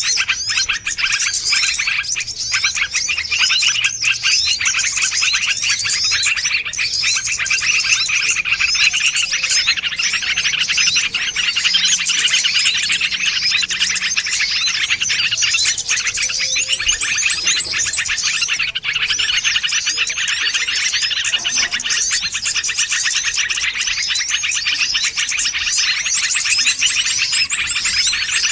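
A dense, unbroken chorus of many small songbirds, with rapid, high-pitched chirps and trills overlapping without pause. It is a bird-lure (pikat) track of small wild birds' calls, used to draw wild birds in.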